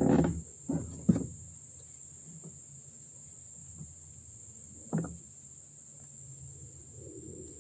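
Dull knocks against an aluminium boat hull as a rope is hauled in and coiled by hand: three in the first second or so and another about five seconds in. A steady high insect drone runs underneath, and a dove starts cooing near the end.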